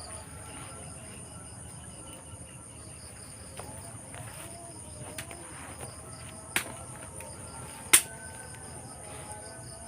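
Night insects trilling steadily in a high, continuous chorus. Two sharp clicks cut through it, about six and a half and eight seconds in, and the second is the louder.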